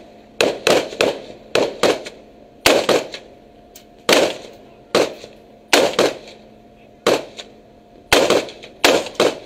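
Rifle gunfire: about fifteen single shots at irregular intervals, each a sharp crack that dies away quickly.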